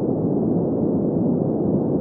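Steady green noise: an even, unchanging hiss with its weight in the low-middle range and almost nothing in the highs.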